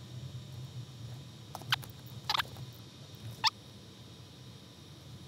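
A few short, high-pitched squeaks, bunched between about a second and a half and three and a half seconds in, over a low steady hum.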